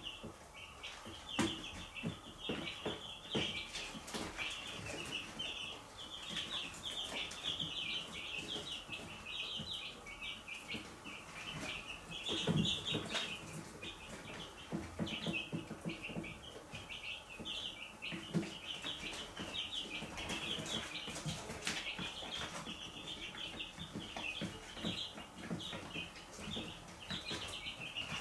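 A brood of young chicks peeping constantly, many short high peeps overlapping with no pause. Frequent light taps and rustles run through it, from the chicks pecking at the plastic trough feeder and scratching in wood-shaving litter.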